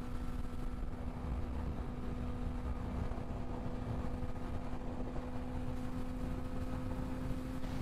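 Suzuki GSX-R sportbike engine holding a steady, even drone at constant highway cruising speed, with low wind rumble on the microphone underneath.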